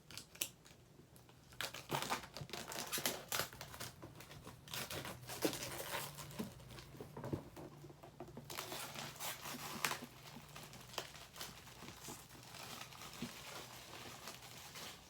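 Scissors cutting and wrapping crinkling and tearing as a box is opened, in irregular crackly bursts with sharp clicks, starting about a second and a half in.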